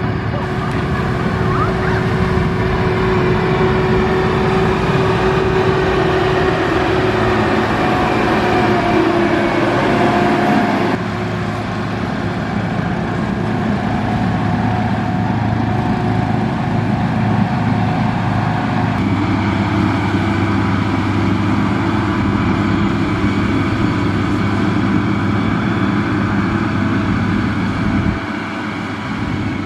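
Diesel engines of heavy road-construction machinery running steadily under load, their pitch drifting a little. The sound changes abruptly about eleven seconds in, again near nineteen seconds, and drops near the end.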